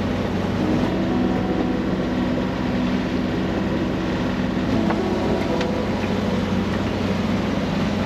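Tartan 3500 sailboat's inboard diesel engine running steadily while motoring, an even low hum with no change in pitch.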